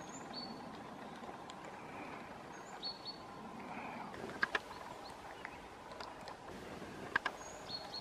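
Eurasian three-toed woodpecker tapping at tree bark: two pairs of sharp taps, about four and a half and seven seconds in. Short high chirps from small songbirds sound a few times over a steady outdoor background noise.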